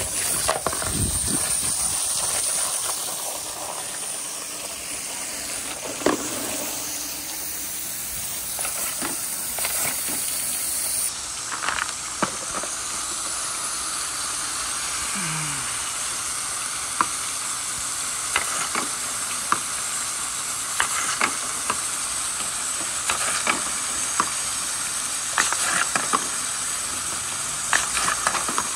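Water rushing steadily down plastic rain-gutter chutes, with wooden balls knocking against the gutters in irregular sharp clacks.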